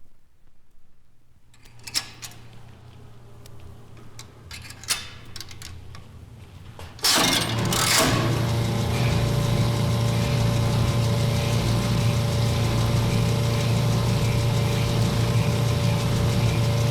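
A couple of faint clicks, then about seven seconds in a machine starts abruptly and runs on with a steady, even hum.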